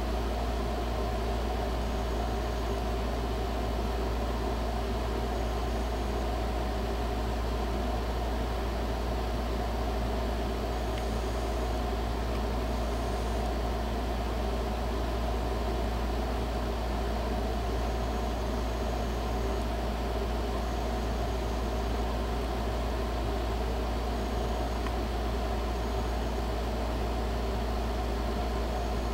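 Steady, unchanging low mechanical hum with hiss.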